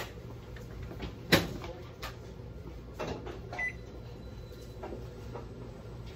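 Several sharp knocks and clacks, the loudest about a second in, like a cupboard or appliance door shutting, with a short electronic beep about three and a half seconds in, over a steady low hum.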